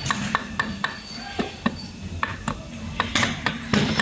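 Light metallic clicks and clinks, several a second, as the parts of an electric scooter's steering head (headset bearing, washer and dust cover) are worked loose by hand, with a few sharper knocks near the end.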